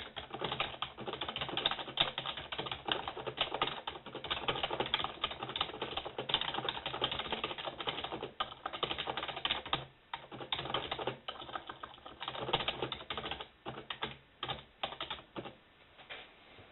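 Fast, continuous typing on a computer keyboard, with a short pause about ten seconds in, then slower, more scattered keystrokes near the end.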